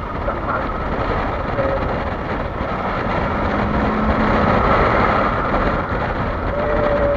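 Kawasaki Versys-X 300 parallel-twin engine running at riding speed on a gravel road, heard from the rider's helmet under a steady rush of wind and tyre noise. The noise swells a little in the middle, where a brief steady hum comes in.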